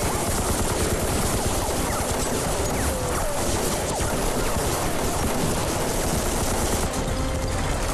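Sustained rifle and machine-gun fire of a pitched battle: dense, overlapping shots with no break.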